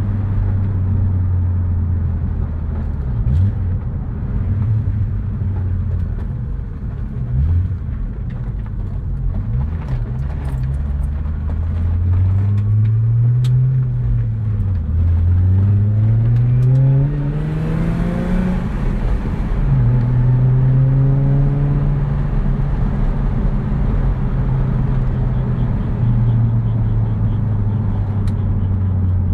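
Holden VU ute's V6 engine, fitted with high-ratio roller rockers, heard from inside the cabin while driving. It runs steadily at cruise, then the revs climb about twelve seconds in, drop sharply, climb again higher, and fall back to a steady cruise, with a brief hiss near the top of the second climb.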